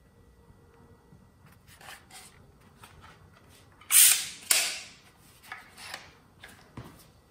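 Cordless 18-gauge brad nailer fired twice, about half a second apart, about four seconds in: two loud, sharp shots. Lighter clicks and knocks follow as the tool is handled.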